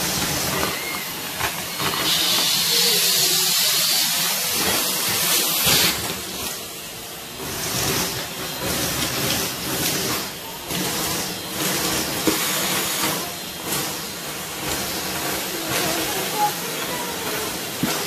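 Henry vacuum cleaner running with its metal wand in a pile of sawdust: a steady rushing hiss of suction, with many sharp little clicks and rattles as wood shavings are drawn up the tube. It is loudest in the first few seconds.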